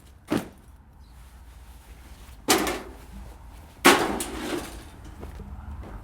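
Three thumps of home-recorded foley: a short one, then two louder ones about a second and a half apart, each trailing off in a brief rustle.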